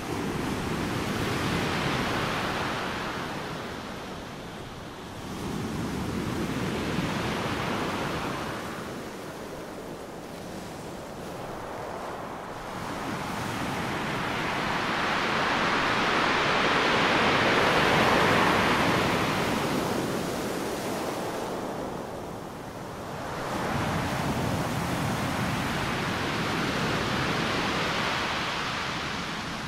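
Ocean surf: a rushing hiss of waves that swells and recedes in slow surges several seconds apart, with one long, loud surge in the middle. Any affirmations mixed beneath it are too quiet to hear.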